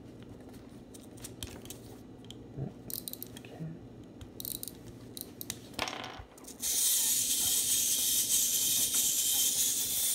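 Small plastic clicks as the Zoids Wild Scorpear's wind-up motor is wound by hand, then, about two-thirds of the way in, the toy's clockwork gearbox suddenly starts running with a steady, high whir as it drives the legs and pincers.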